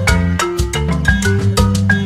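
Background music: an upbeat Latin-style tune with mallet-percussion melody notes over bass and a steady beat.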